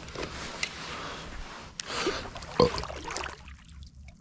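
Water swishing and lapping around a kayak on a moving river, coming and going unevenly, with one louder, sharper sound about two and a half seconds in.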